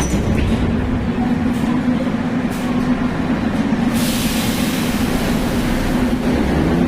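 81-717.5M/714.5M metro train at the platform with a steady hum, then a hiss of air about four seconds in. Near the end its traction motor whine starts to rise in pitch as the train pulls away.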